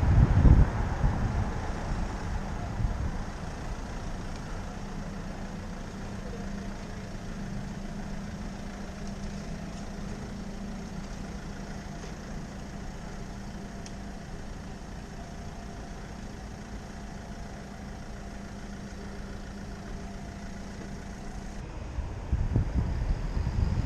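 Wind noise on the microphone dies down in the first second or two, leaving a motor vehicle engine idling with a steady low hum. The hum stops suddenly near the end, and the wind noise of riding comes back.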